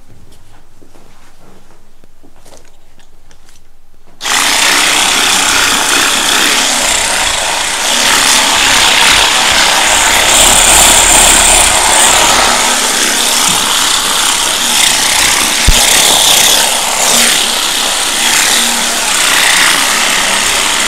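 Handheld percussion massage gun switched on about four seconds in and running continuously against a patient's back, its sound shifting a little as it is pressed and moved. It stops abruptly at the end.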